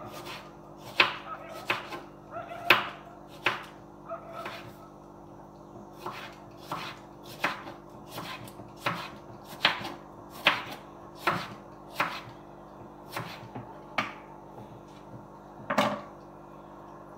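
Kitchen knife slicing a tomato on a wooden cutting board: a steady series of sharp knocks as the blade meets the board, roughly one to two a second, with a short pause about five seconds in.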